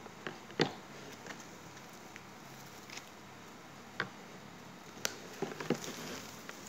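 Handling noise: red foil tinsel garland and plastic-wrapped snack packs crinkling and rustling, with scattered short clicks and taps as they are pressed and arranged around a bucket.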